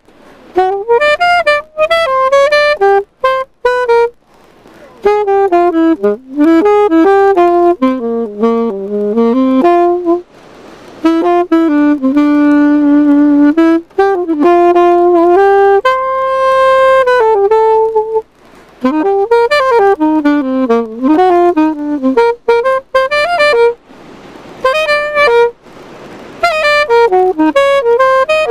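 Unaccompanied alto saxophone playing a melody in phrases, with short breaks for breath and a few long held notes in the middle.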